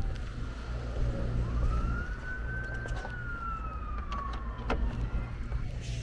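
Emergency vehicle siren wailing: a single tone that climbs a little over a second in, then slowly falls away and starts to rise again just after the end. Underneath runs a steady low rumble, with a few light clicks.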